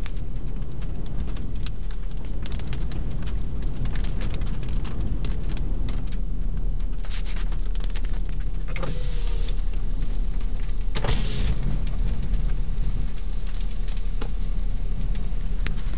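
Inside a vehicle on the road in a severe storm: a steady low rumble of wind and vehicle noise, with scattered sharp ticks of windblown grit and rain striking the car and brief louder rushes about seven, nine and eleven seconds in.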